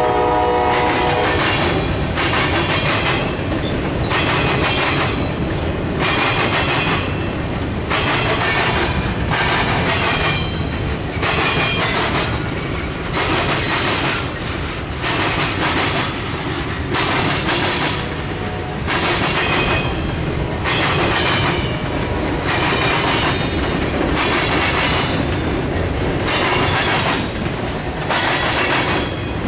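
Freight train cars rolling over a railroad crossing diamond, their wheels clattering over the diamond in a steady rhythm of about one clatter a second. Faint wheel squeal comes and goes. A locomotive horn's last note cuts off about a second in.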